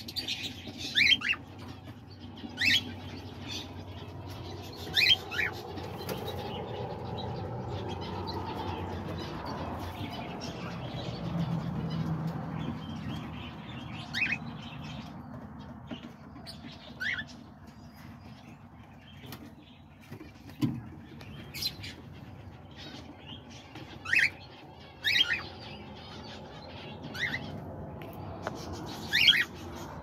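Cockatiels calling in an aviary: about a dozen short, sharp, high chirps and whistles at irregular intervals, some sliding in pitch, over a steady low rumble that is stronger in the first half.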